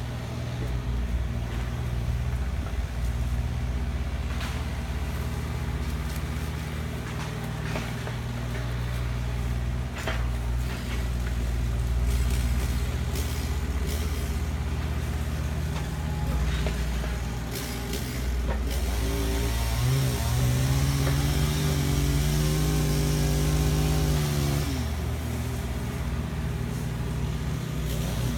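Heavy diesel vehicle or machinery engines running low and steady, with scattered knocks and clatter. About twenty seconds in, one engine revs up, holds its note for several seconds, then drops back.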